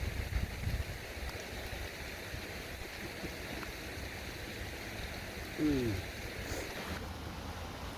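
Steady rushing outdoor ambience, with wind rumbling on the microphone in the first second. A little over halfway through comes a single short call that falls in pitch.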